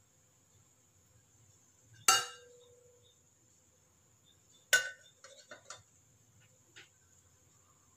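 Aluminium idli steamer plate clanking against the pot: two sharp metal clanks, the first ringing on briefly, then a few lighter clicks as the plate is fitted onto the steamer's centre rod.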